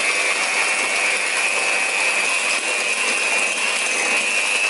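Breville electric hand mixer running steadily, its twin beaters whisking a wet batter in a glass bowl, with a steady high whine over the motor noise.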